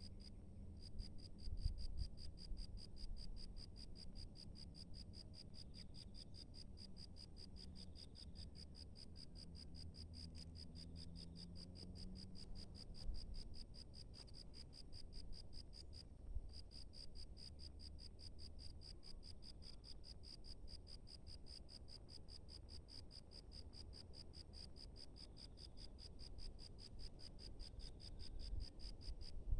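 A cricket trilling: a high-pitched, steady chirp of rapid, even pulses that breaks off briefly twice, near the start and about halfway through.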